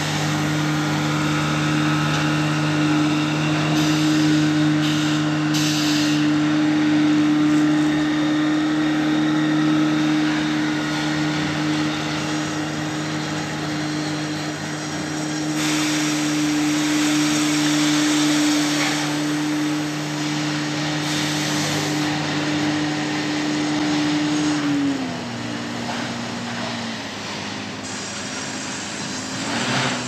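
A log boom boat's engine runs at a steady high speed while the boat churns through the water among floating logs. Near the end the engine note drops to a lower, uneven pitch as it slows.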